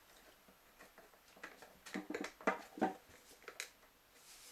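Rubber tyre of a baby stroller wheel being worked onto its rim by hand: a string of short rubbing and clicking sounds starting about a second and a half in.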